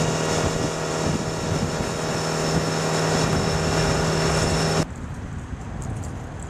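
Mercury outboard motor running steadily at high speed as the boat planes, with the rush of wake and wind. About five seconds in, it cuts off abruptly to a much quieter background hiss.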